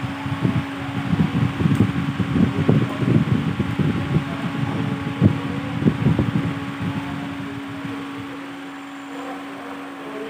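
Steady hum of a running fan, with uneven low rumbling of moving air on the microphone that is strongest for the first seven seconds or so and then eases off.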